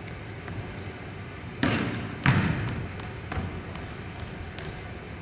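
Basketball bouncing on a hardwood gym floor, two loud echoing bounces about a second and a half and two seconds in, then a few fainter knocks.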